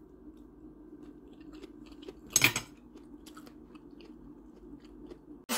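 A person chewing a mouthful of spiralized raw vegetable noodle salad close to the microphone, with small crunching clicks and one louder short noise about two and a half seconds in.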